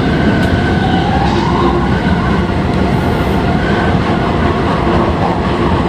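Odakyu 3000-series electric commuter train under way: steady wheel-on-rail running noise with an electric motor whine, one tone of which rises in pitch between about half a second and two seconds in.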